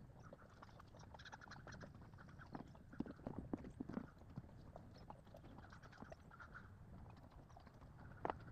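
A horse's hooves clopping faintly and irregularly on the ground.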